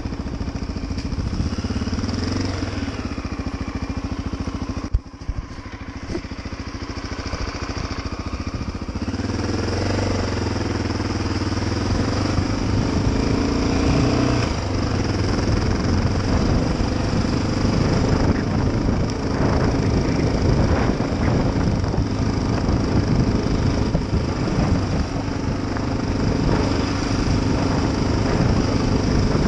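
Honda XR650L's single-cylinder four-stroke engine running as the motorcycle is ridden along a dirt road. About five seconds in there is a sudden knock and a brief drop in level, then the engine note rises and grows louder and stays there.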